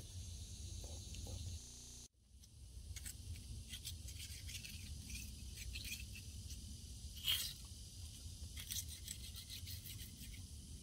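Knife cutting a catfish fillet down along the ribs, making faint scattered clicks and scratches of the blade on bone and skin. Under it runs a low steady rumble, briefly cut out about two seconds in.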